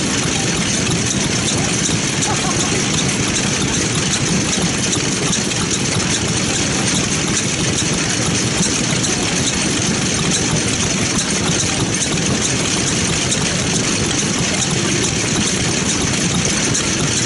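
Vintage Katsura engine on a Sato walk-behind cultivator, running steadily.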